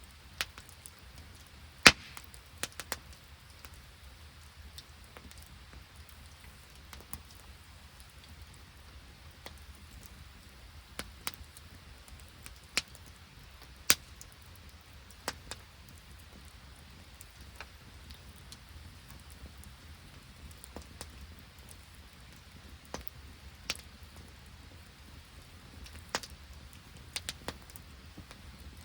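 Open wood campfire crackling, with sharp pops at irregular intervals, the loudest about two seconds in and again near the middle, over a steady low rumble.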